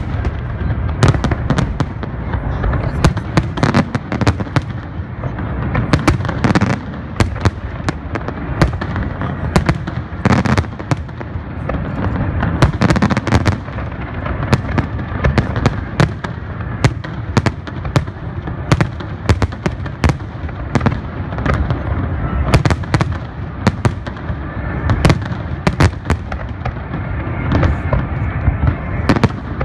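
Large aerial fireworks display: a continuous barrage of shell bursts, many sharp cracks and booms in rapid succession over a steady low rumble.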